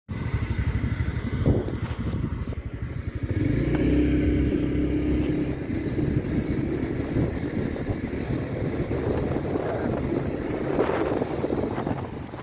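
A small engine running, with a rapid low pulsing. About three seconds in it gets louder and a steady hum joins it for a few seconds.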